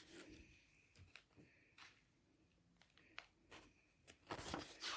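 Near silence broken by a few faint clicks, then paper rustling from about four seconds in as the pages of a book are handled.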